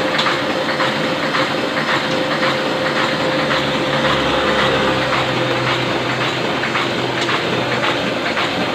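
Ryobi 520 offset printing press running: a steady mechanical clatter with a regular clacking rhythm over a constant hum.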